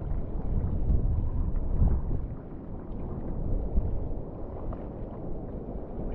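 Wind rumbling on the microphone and water rushing past during a wingfoil ride, easing a little about two seconds in.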